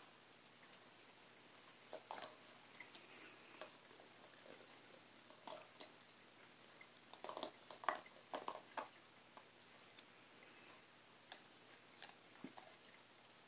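Dog nosing and pawing at a plastic treat puzzle: faint, scattered clicks and taps of its plastic caps and base, with a cluster of louder knocks about seven to nine seconds in.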